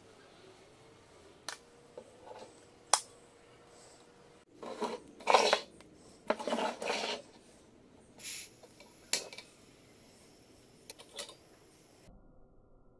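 Small stainless steel pot and its hinged metal lid clinking as they are handled, then the pot shifted and set down on the metal pot grate of a portable gas canister stove. Several sharp single metallic clicks are spread through it, with a longer stretch of scraping and handling in the middle.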